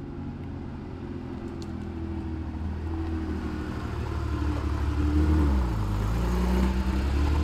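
Air-cooled flat-six engine of an early Porsche 911F running at low speed as the car rolls up. It grows louder as it nears, and its pitch shifts about five to six seconds in.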